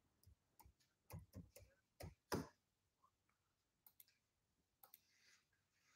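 Scattered small clicks from a laptop keyboard and a computer mouse, about a dozen in all. The loudest comes a little over two seconds in, and the rest is near silence.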